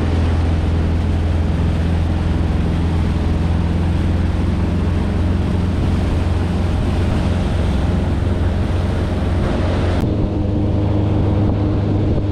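Boat motor running steadily under way, a constant low drone with rushing hiss over it; the hiss thins out about ten seconds in.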